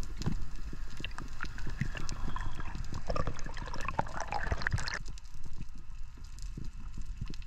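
Underwater sound on a rocky reef, heard through a diving camera: a dense, irregular crackle of short clicks over a low water rumble. A busier gurgling sound joins about two seconds in and cuts off suddenly about five seconds in.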